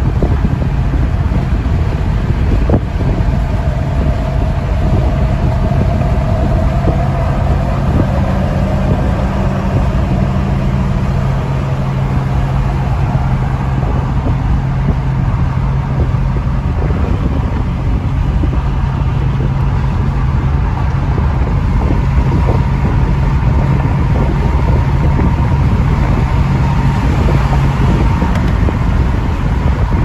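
Steady road, tyre and engine noise inside a car cruising at highway speed, with a low drone for most of it.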